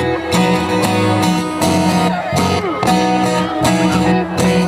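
Live band playing an instrumental passage between sung lines: strummed guitar over a steady beat.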